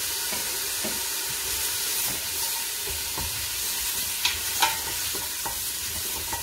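Chopped bacon sizzling in a hot stainless steel pot, stirred with a utensil that scrapes around the pot, with a couple of sharp clicks against the metal a little past the middle.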